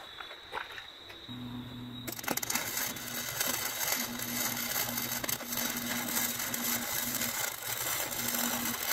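Electric arc welding on steel: a low steady hum comes on about a second in, then the arc starts about two seconds in and crackles and sizzles steadily.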